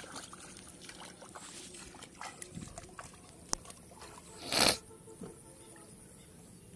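Water sloshing and splashing as a person wades through shallow floodwater, with small scattered splashes and one much louder splash about four and a half seconds in.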